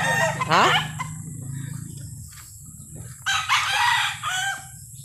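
Gamecock roosters crowing: a call in the first second, then a louder, rough crow lasting over a second about three seconds in.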